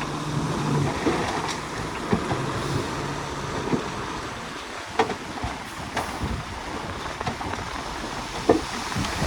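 Heavy diesel earthmoving machinery running with a steady rumble, its engine hum clearest in the first second. Sharp cracks sound now and then, the loudest about five and eight and a half seconds in.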